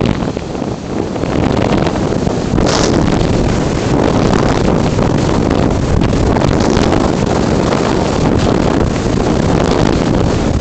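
Steady rush of wind buffeting the microphone of a camera riding on an unpowered RC slope glider in flight, with a few short hissing swells about three, seven and eight seconds in.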